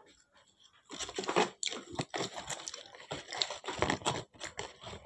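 Thin plastic bags crinkling and rustling in irregular bursts, starting about a second in.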